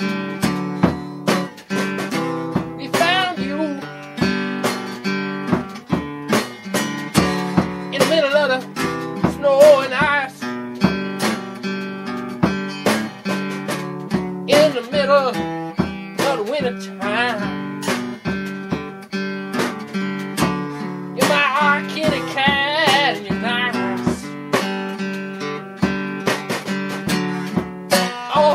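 Acoustic guitar music, plucked and strummed with frequent note attacks; a wavering melody line comes in now and then over it.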